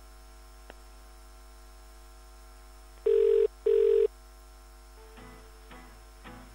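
Telephone ringing tone heard down the line: one double ring, 'brr-brr', as the call is put through to another department. Faint music starts near the end.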